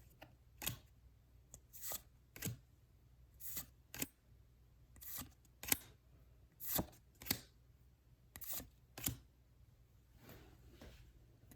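Pokémon trading cards being slid one by one off a freshly opened pack's stack, each card giving a short, quiet swish, roughly one or two a second.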